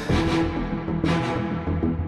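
Dramatic background music with held notes and a few sharp hits.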